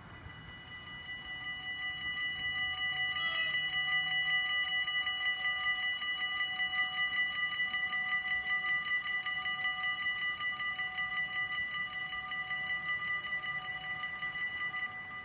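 Electric level-crossing warning bells ringing continuously in fast repeated strokes on a few steady pitches, coming in about a second in. They sound while the half-barriers lower, warning that a train is approaching.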